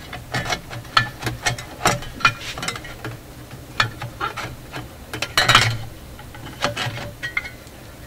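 Power-supply cover plate of a Traynor 8/201 mixer being worked loose and pulled off the chassis: irregular clicks, taps and scrapes, with a longer scrape about five and a half seconds in.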